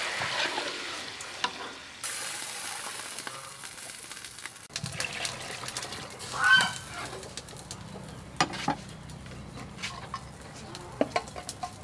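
Water poured into a hot aluminium pot of frying tom yum paste, sizzling and hissing. After about five seconds the sizzle stops suddenly and gives way to a quieter background with scattered clicks and knocks, and one short high call a little past halfway, the loudest sound.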